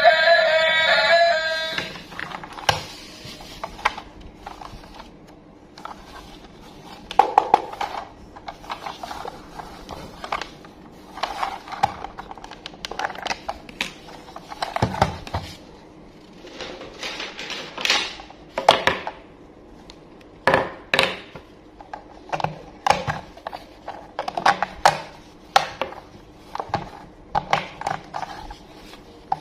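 A song with synthetic singing stops about two seconds in. Irregular clicks, taps and short rustles follow: small toys and their plastic and cardboard packaging being handled and opened.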